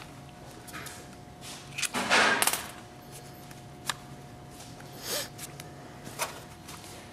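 Scattered clicks, taps and a couple of short scrapes from the plastic stalk-cluster housing and its small screws being handled as the screws come out, the longest scrape about two seconds in. A faint steady hum runs underneath.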